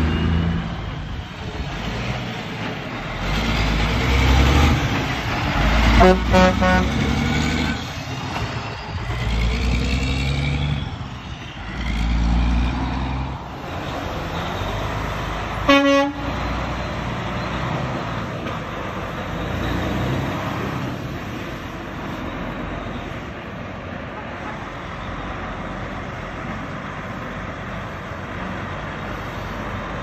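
Heavy diesel trucks running and pulling away, their engine sound swelling and fading several times. A horn sounds about six seconds in and a short horn toot comes around sixteen seconds in, then a steadier, quieter engine sound follows.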